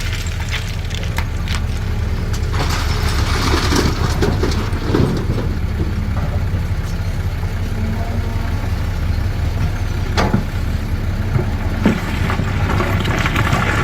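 CAT 320D excavator's diesel engine running steadily, with scattered knocks and clatter from the bucket working stone, a cluster of them a few seconds in and sharp single knocks near the end.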